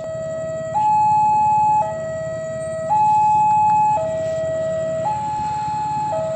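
Electronic two-tone warning siren alternating steadily between a lower and a higher note, each held about a second, with no change in pitch within each note.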